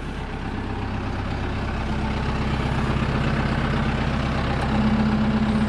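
Tractor engine running steadily while its hydraulics raise the round baler's tailgate. The sound grows gradually louder, and a low hum strengthens near the end.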